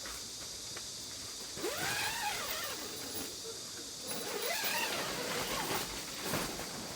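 Two drawn-out animal calls, each rising and then falling in pitch, about two seconds apart, over a steady high-pitched drone of insects.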